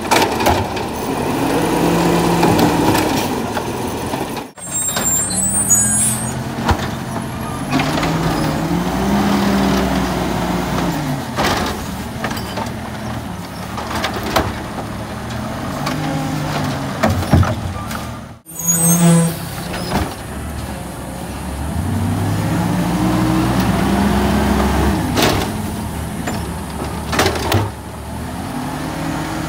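Natural-gas automated side-loader garbage truck working its hydraulic arm: the engine revs up and falls back again and again as the arm grabs, lifts and tips wheeled trash carts, with sharp knocks and clanks of the carts against the arm and hopper.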